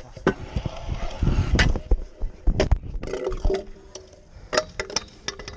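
Stunt scooter rolling and grinding on concrete and metal coping: a steady wheel rumble broken by many sharp clacks and clinks as the deck, wheels and bars strike the coping and ground, a few of them ringing briefly.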